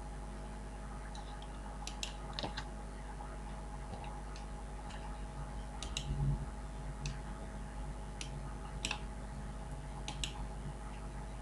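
Faint, irregular clicks of a computer mouse and keyboard, about a dozen spread over several seconds, over a steady low hum.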